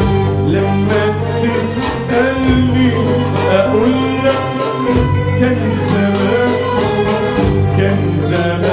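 Live Arabic ensemble music: violin, oud and Korg keyboard playing a wavering melody over a sustained bass and a percussion beat.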